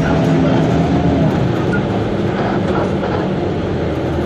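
Suzhou Higer KLQ6930G city bus on the move, heard from inside the cabin: steady engine drone with road noise.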